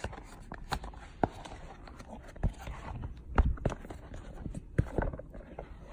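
Irregular knocks and thumps from handling a collapsible silicone popcorn popper as it is extended and collapsed, the loudest thump about three and a half seconds in.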